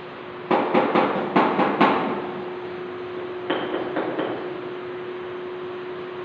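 A quick run of six sharp knocks, then three fainter knocks about three and a half seconds in, over a steady low hum.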